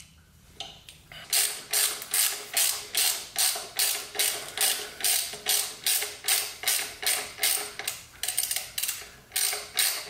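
Hand ratchet clicking in quick, even back-and-forth strokes, about three a second, starting about a second in and pausing briefly near the end. It is snugging down the mounting bolts of an Ohlins steering damper bracket.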